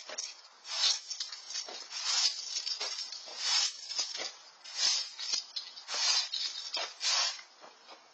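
Straw broom sweeping a concrete patio: a run of short swishing strokes of the bristles across the concrete, roughly one a second.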